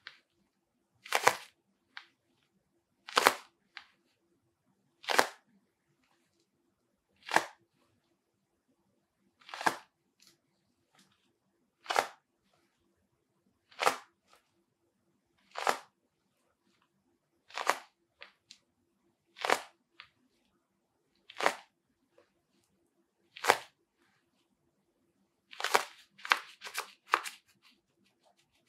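HO Soccer Legend II goalkeeper glove being flexed and handled on a hand: short, crisp sounds from the glove about every two seconds, with a quicker run of several near the end.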